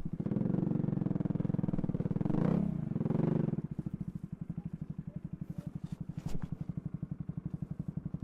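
Motorcycle engine running, louder for the first few seconds, then dropping to a steady idle with an even beat of about ten pulses a second.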